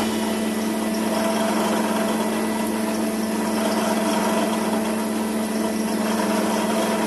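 Combination planer with a slot-mortising attachment running without load: a steady electric hum with no cutting.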